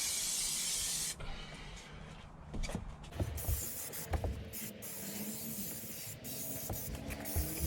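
A spray hisses steadily and cuts off about a second in, followed by scattered light knocks and rubbing.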